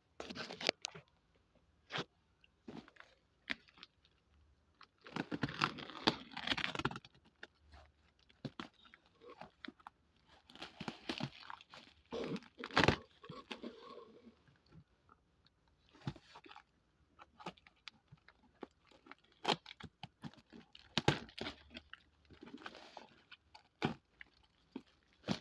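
Packaging of a TV wall bracket being opened and handled by hand: irregular crinkling and tearing rustles between scattered sharp clicks and knocks.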